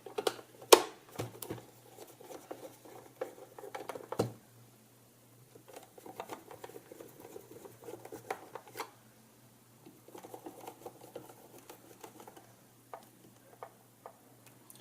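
Screwdriver tightening the case screws of a plastic clock radio: a run of fine scratchy ticking as screws turn, broken by sharp clicks and taps as the case and tools are handled. The loudest click comes about a second in.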